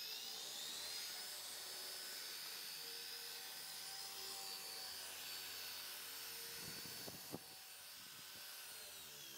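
TORQ random orbital polisher running on car paint with an orange foam cutting pad, working correcting cream into swirled black paint. Its whine rises in pitch as it speeds up at the start and drops near the end, with one short click about seven seconds in.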